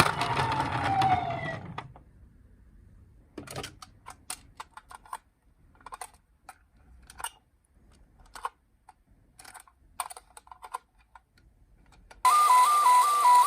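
A wailing siren fades out in the first two seconds. Then come scattered light clicks and taps from a toy car being handled. Near the end a toy's electronic two-tone siren switches on abruptly, alternating between a high and a low note about twice a second.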